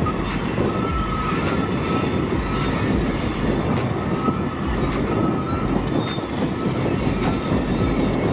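Freight train of tank cars rolling by: a steady rumble of wheels on rail, with scattered clicks and a faint thin wheel squeal that comes and goes.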